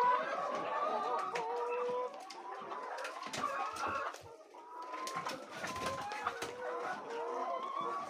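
Several chickens clucking, short calls overlapping one another. A few brief knocks and rustles come around the middle.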